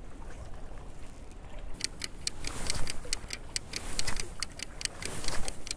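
Clock-ticking sound effect: fast, evenly spaced ticks starting a little under two seconds in, over a low steady background hiss.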